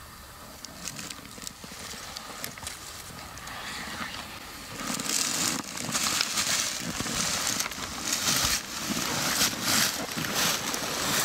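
Footsteps crunching through dry leaves and twigs, faint at first and much louder and closer from about five seconds in, in an uneven stride.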